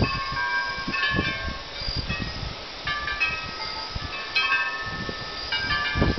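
Wind chimes ringing irregularly in the storm wind, several pitches struck at random moments. Wind gusts buffet the microphone underneath.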